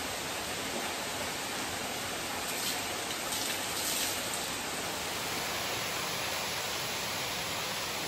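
Steady rush of falling water from a small waterfall beside an open-air hot spring bath, with the bath's hot spring inflow pouring in.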